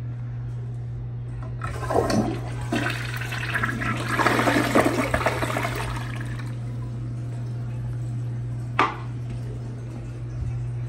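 Toto Drake toilet flushing: water rushes through the bowl and down the drain, loudest from about two to six seconds in, then dies down to a quieter hiss. A sharp knock comes near the end, over a steady low hum.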